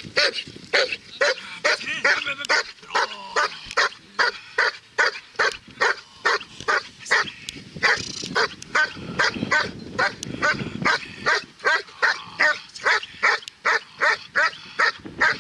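German Shepherd barking steadily and rapidly, about three barks a second, at a helper in a blind during protection training: the bark-and-hold, where the dog keeps the helper in place by barking.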